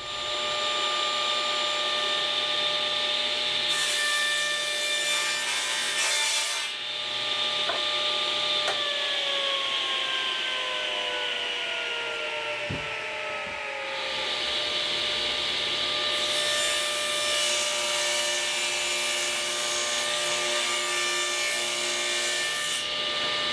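Table saw running with a steady whine, its blade crosscutting pine boards with a rushing hiss twice, first a few seconds in and again past the middle. In between, the saw's pitch falls steadily for several seconds.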